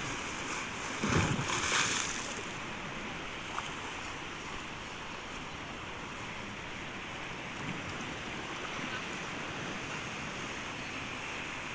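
Sea waves washing onto a beach: a steady rush of surf, with one louder surge about a second in.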